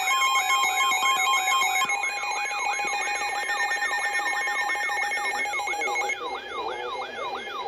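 Electronic emergency-alert tones: a siren-like alarm sweeping up and down in pitch about three times a second, over steady alert tones that drop out one after another partway through.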